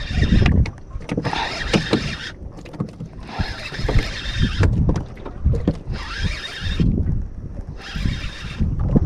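Baitcasting reel whirring in four short bursts of cranking, each about a second long with pauses between, as a hooked fish is reeled in under a bent rod. Wind buffets the microphone throughout.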